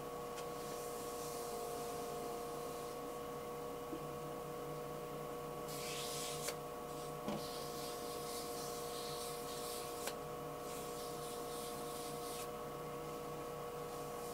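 Wood lathe running with a steady motor hum and whine while sandpaper is held against a spinning banksia-pod and dyed-epoxy pen blank, giving a soft hissing rub in two stretches, the longer one in the middle, with a few light clicks.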